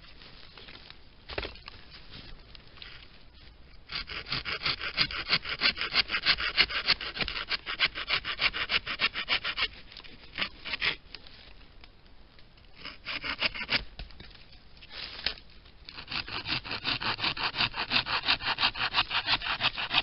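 A small hand saw blade in a homemade handle cutting through a wooden branch with quick back-and-forth strokes. It starts a few seconds in after a couple of light knocks, stops briefly about halfway through, and runs again steadily over the last few seconds.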